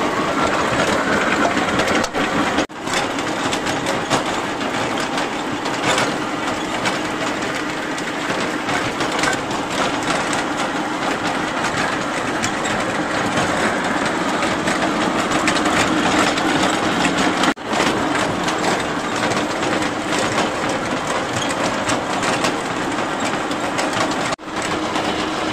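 Water-well drilling rig running, a loud, steady mechanical clatter with a faint hum beneath it, broken by three very short dips.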